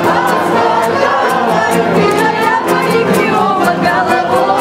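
A large group of women and men singing a song together in chorus, with a regular beat underneath.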